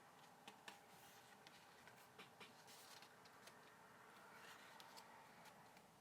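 Faint, scattered light ticks and rustles of album booklet pages being handled and turned.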